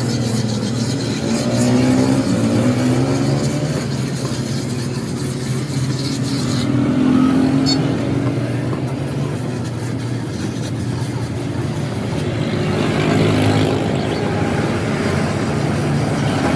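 A motor vehicle engine running steadily, its pitch rising and falling a little.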